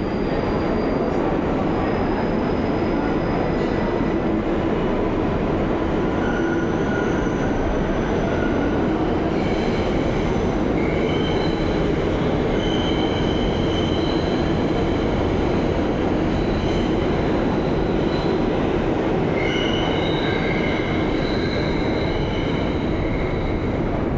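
New York City subway train running on the rails in a station: a loud, steady rumble of wheels on track, with high metallic wheel squeals that come and go, strongest from about ten seconds in and again near the end.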